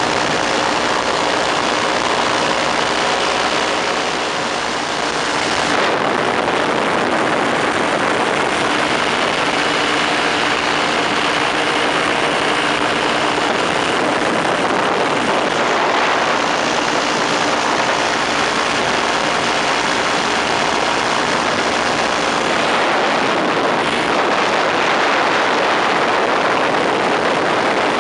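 Engine and propeller of an open ultralight aircraft running steadily in flight, heard from the open seat under heavy wind rush.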